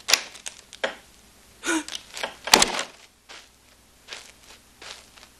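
Several short knocks and thumps, the loudest about two and a half seconds in, with quieter ones after.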